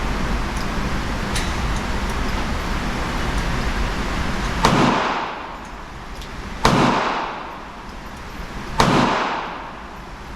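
.22 single-action revolver with a 6.5-inch barrel fired three times, about two seconds apart, each shot followed by a short echoing decay. A steady background rumble fills the first half before the shots.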